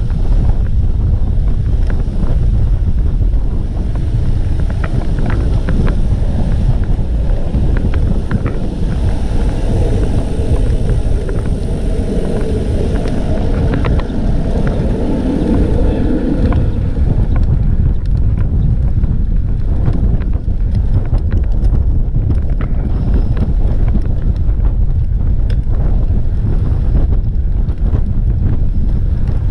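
Wind buffeting the microphone of a camera on a moving road bicycle: a loud, steady low rumble, with scattered small clicks in the first half and a busier stretch partway through.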